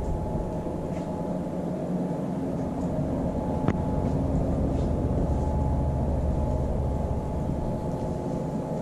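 Carpet-cleaning machine running with a steady low hum and a faint steady whine above it, and a single sharp click a little under four seconds in.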